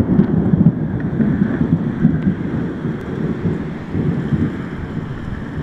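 Rain falling in a windy thunderstorm, under a loud, uneven low rumble that slowly eases.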